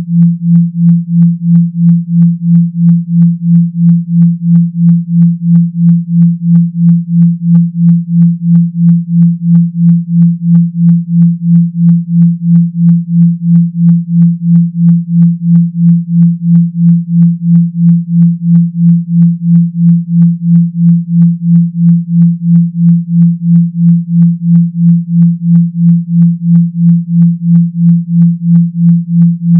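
Synthesized low 170 Hz tone, a deep electronic hum that pulses evenly about two and a half times a second, like a phone's vibration motor buzzing.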